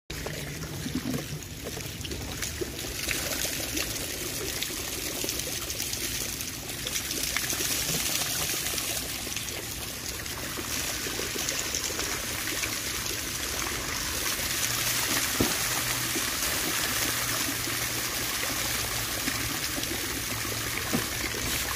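Water steadily trickling and pouring, an even hiss of running water with no clear breaks.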